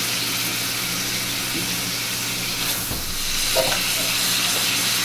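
Ground beef and longaniza sausage sizzling steadily as they fry in a cast-iron skillet, the hiss growing a little louder about halfway through.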